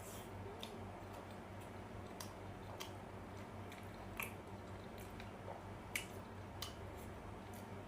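Close-up chewing of steamed momo dumplings, with about six short, sharp mouth or utensil clicks spaced unevenly over a steady low hum.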